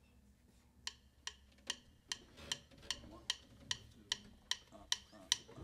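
Drumsticks clicked together in a count-in: twelve quiet, evenly spaced clicks at about two and a half per second, starting about a second in. They set the tempo for the jazz band.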